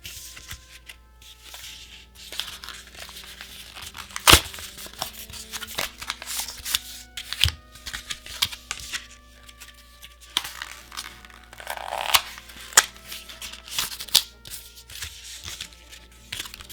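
Packaging of a trading-card prerelease box being torn open and crinkled, with irregular crackles and a few sharp clicks, the loudest about four seconds in. Soft background music plays underneath.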